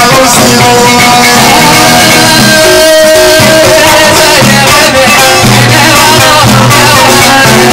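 Loud live Moroccan folk music: a plucked lute played over bendir frame drums and a hand drum in a steady rhythm.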